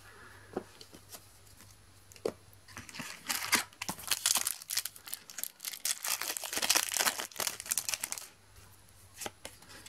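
Foil trading-card packet torn open and crinkled by hand: a dense crackling that starts about three seconds in and stops about a second and a half before the end, with a few light clicks of card handling before it.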